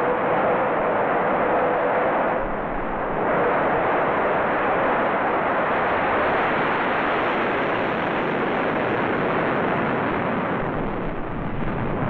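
McDonnell Douglas Phantom's twin Rolls-Royce Spey turbofans in full reheat on the takeoff roll and lift-off: a loud, steady jet roar, with a brief dip about two and a half seconds in.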